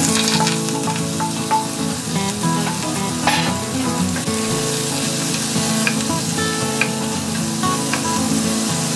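Chopped fennel, celery and mushrooms sizzling in hot oil in a pot as a wooden spatula stirs them, with a few knocks of the spatula against the pot, the loudest about three seconds in.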